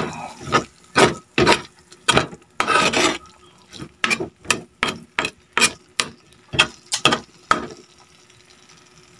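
A spatula scraping and stirring corned beef and diced potatoes in a frying pan, in quick strokes about two a second that stop about seven and a half seconds in, with a faint sizzle.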